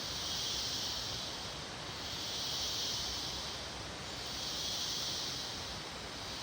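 Tropical insect chorus: a high, hissing buzz that swells and fades in slow waves about every two seconds.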